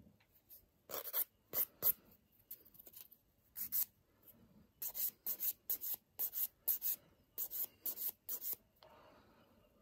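A nail file rasping across a fingernail in about twenty short strokes, in quick runs of two to six separated by brief pauses.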